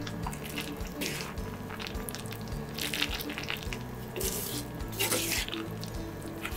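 Chopsticks tossing spaghetti through a runny, creamy egg sauce in a small skillet: wet squelching and slurping in several short bursts, about a second in and again around three, four and five seconds. Soft background music with steady notes underneath.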